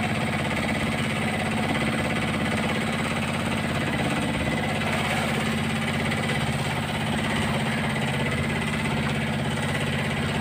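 A small engine aboard an outrigger fishing boat running steadily: a constant low hum with fast, even pulses that does not change.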